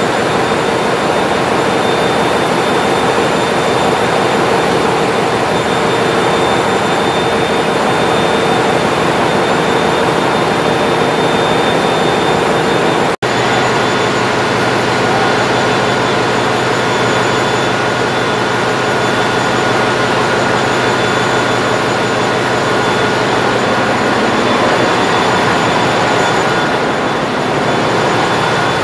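Loud, steady din of a ship's engine-room machinery, a dense roar with several steady hums running through it. It drops out for an instant a little before halfway, then carries on much the same.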